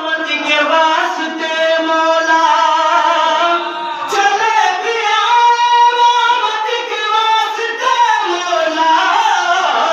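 A man solo-singing a devotional kalam into a microphone, holding long notes and gliding between them.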